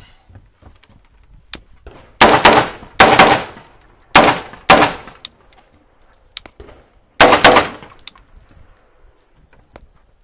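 AR-15 carbine (Daniel Defense 16-inch barrel with a Strike Industries Checkmate muzzle brake) firing about five shots in an uneven string between about two and eight seconds in. Each is a loud crack with a short ringing tail, fired from inside a wooden shack.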